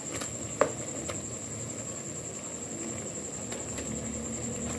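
Fried eggplant slices dropping into a pan of simmering tomato-onion masala, with soft plops over a low steady bubbling and sizzle. One brief sharp tick stands out about half a second in.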